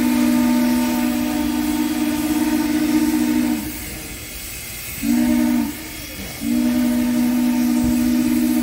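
A locomotive out of sight sounding a low two-note warning blast: a long blast that stops, a short one about a second and a half later, then another long blast. The long, short, long pattern fits the end of the standard grade-crossing signal.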